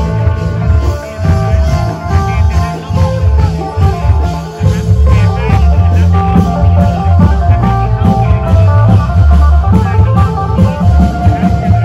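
Loud music with a heavy pulsing bass beat, drums and a plucked-string lead melody.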